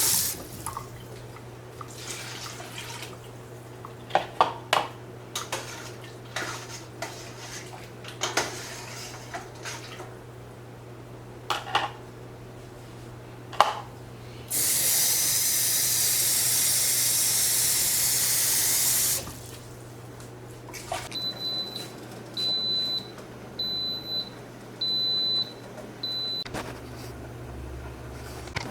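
Kitchen tap running into a pot for about four and a half seconds, water being added for a pressure-cooked soup. Scattered clinks and knocks of kitchen utensils come before it, and a row of five short high electronic beeps follows.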